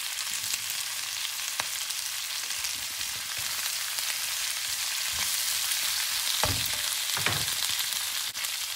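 Vegetables sizzling in a non-stick wok on a gas hob, with a steady hiss and small crackles. A spatula stirs them, scraping and knocking against the pan several times in the second half.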